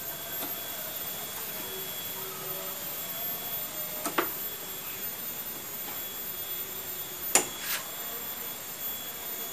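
Small metal tool clicking against a motorcycle's front disc-brake master cylinder while prying out the circlip that holds its piston. There is one sharp click about four seconds in and two more close together near the end, the first of these the loudest.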